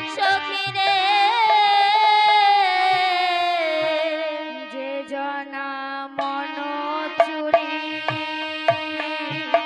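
Live Bengali devotional kirtan music: a woman singing a long, wavering line that slowly falls in pitch over a steady drone, with drum strokes coming in about halfway through.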